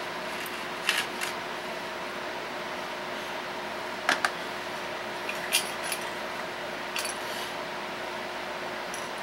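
Small metal hardware clicking and clinking as it is handled: about six short sharp clicks, two of them close together about four seconds in, over a steady background hum.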